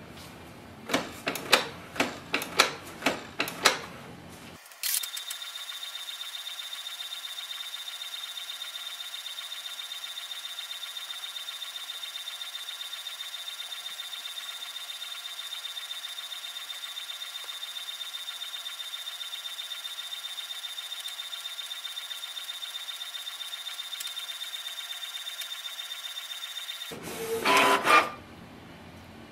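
Canon PIXMA TS3700 inkjet printer printing a printhead alignment page. First comes a quick run of loud mechanical clicks. Then a steady high-pitched whine with a fast flutter runs for about twenty seconds, and a brief louder clatter sounds near the end as the printed page comes out.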